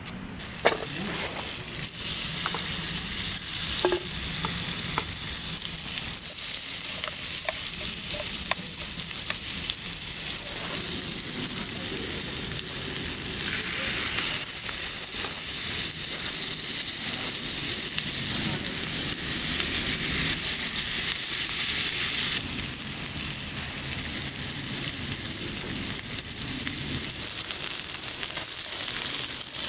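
Asparagus and scallops sizzling in a small frying pan, a steady frying hiss that starts about half a second in, with a few light clicks early on.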